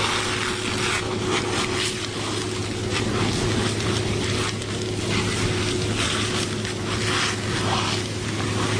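Loud simulated fireground noise: a steady machine drone with a constant hum and a held tone, under dense hissing and irregular crackling.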